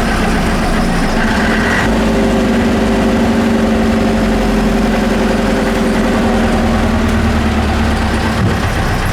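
1960s Bristol bus's diesel engine idling steadily, a deep even hum.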